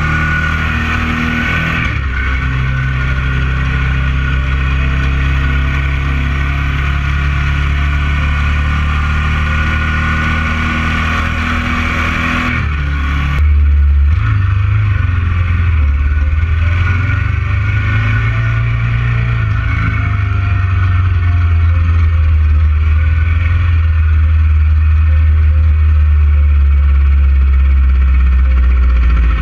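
Ducati 900 SS's air-cooled V-twin engine running under the rider, heard from a camera mounted on the bike. The sound shifts abruptly about 2 and 13 seconds in, and after the second shift the engine note wavers up and down for several seconds before settling.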